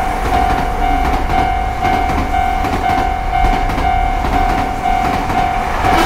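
Japanese railroad crossing alarm ringing on and off about twice a second, over the rumble and clatter of a passing electric train.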